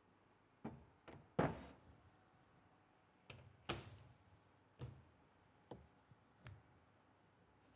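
A series of knocks and clunks from a metal workpiece block and a large steel clamp being handled on a counter. The loudest, about a second and a half in, rings briefly as the block is set down.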